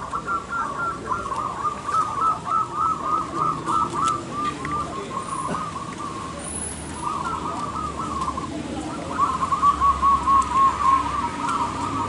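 Zebra doves (perkutut) cooing in fast, continuous runs of short, bubbling notes. The calling breaks off briefly about halfway through and comes back louder for a couple of seconds after that.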